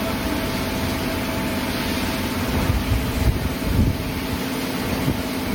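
Steady mechanical hum of workshop machinery with a low rumble underneath and a few faint steady tones, unchanging throughout.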